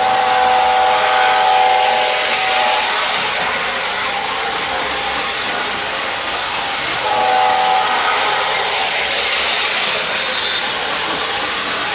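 O scale model trains running on a layout, with a steady hiss and rumble of wheels and motors. A locomotive's sound system blows a multi-tone horn twice: for about three seconds at the start, and again for about two seconds starting some seven seconds in.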